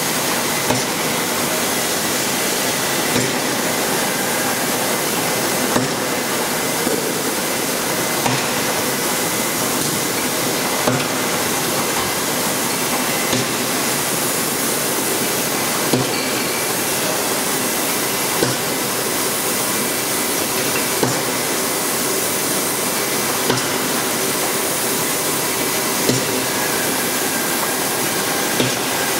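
Sparkling-wine disgorging line running: a steady machine hiss and hum, with a sharp clack about every two and a half seconds as the machine cycles.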